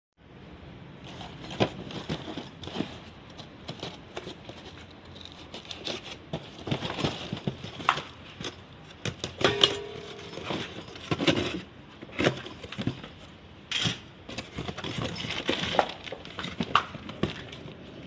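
A cardboard shipping box being handled and torn open by hand: irregular rustling, scraping and tearing of cardboard and packing tape, with plastic wrapping crinkling.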